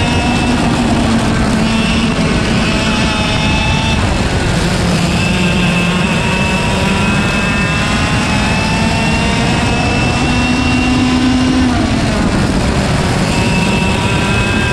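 IAME KA100 single-speed two-stroke kart engine running at full throttle, heard onboard with wind noise. Its note climbs slowly along the straights and drops sharply three times as the driver lifts off for the corners.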